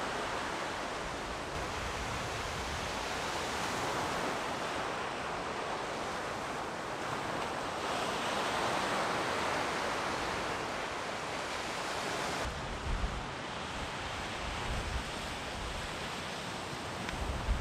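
Small waves breaking and washing up a pebble-and-sand beach, the surf swelling and easing every few seconds, with low rumbles of wind on the microphone in the second half.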